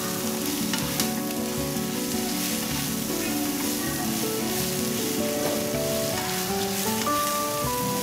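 Cicada nymphs stir-frying in hot oil with shallots and lemongrass over high heat: steady sizzling, with chopsticks tossing the food around the pan.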